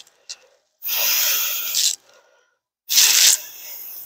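Rubbing and scraping from steel bed-frame rails being lifted and handled: a short click just after the start, then two bursts of scraping noise, the first about a second long, the second shorter with a fading tail.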